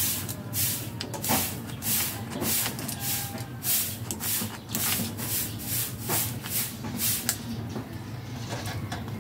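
Rhythmic scraping strokes, roughly two a second, from hand work on an arc-welding electrode holder, over a steady low hum. The strokes thin out and fade about seven seconds in.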